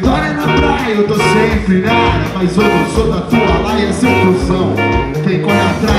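Live band playing loud through stage speakers: a steady drum-kit beat under guitar, with some singing.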